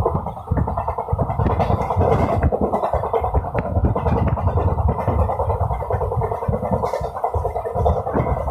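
A train running over the rails: a steady, loud rumbling rattle of wheels on track, with irregular low thuds through it.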